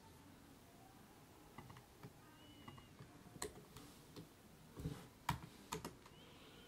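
Faint computer keyboard key presses and clicks while text is edited, irregular and scattered, coming more often in the second half.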